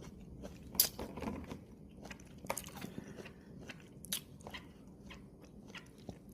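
A person eating something crunchy: three loud crisp crunches as it is bitten, spread over several seconds, with quieter crunching and chewing between them.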